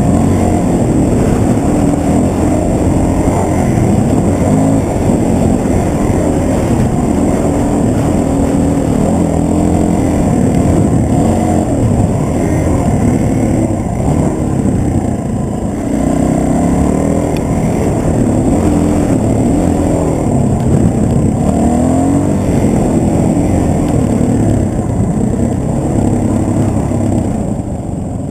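Dirt bike engine revving up and down hard under load on a steep sandy climb; the revs fall away near the end.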